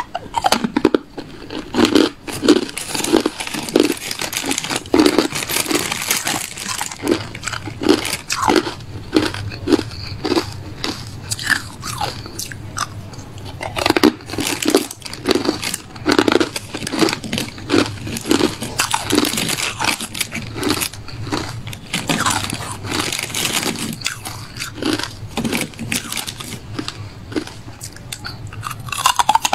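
A person chewing and crunching hard clear ice, teeth cracking it in a steady run of crunches, about two to three a second.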